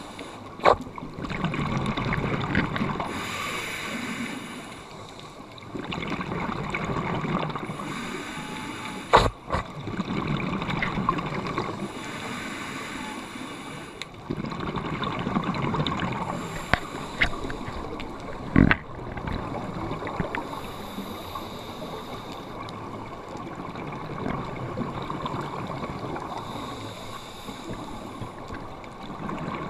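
Scuba regulator breathing heard underwater: bubbling exhalations every few seconds alternating with hissing inhalations, with three sharp clicks.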